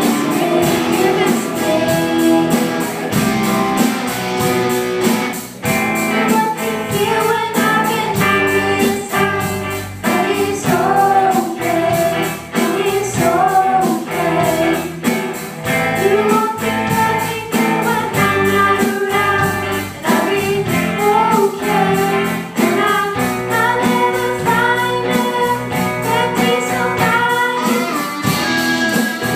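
A live band playing a song: female voices singing over electric guitars, bass guitar and a drum kit keeping a steady beat.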